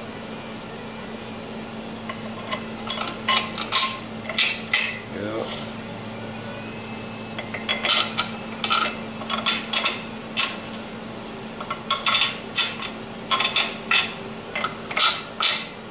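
Steel parts clinking and knocking together in scattered runs of sharp, ringing taps, as plates and pieces are handled and fitted against each other. A steady low hum runs underneath.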